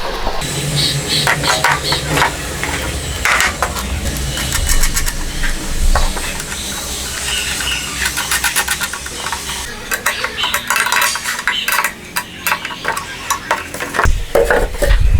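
Irregular scraping and rasping from hand work, with many quick clicks and scattered knocks.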